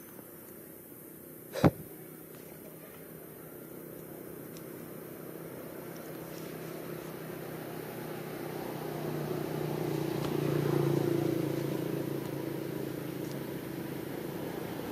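A steady motor hum that swells to a peak about ten seconds in and then eases off, with a single sharp click near the start.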